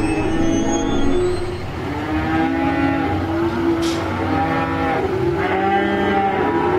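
Several cattle mooing at once: long calls at different pitches overlapping one another, with a brief sharp click about four seconds in.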